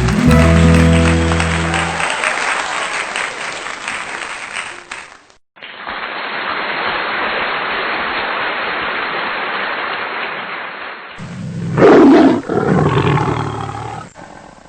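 Crowd applause and cheering in several cut-together clips, after a held musical chord ends in the first two seconds. Near the end comes a louder burst of crowd noise.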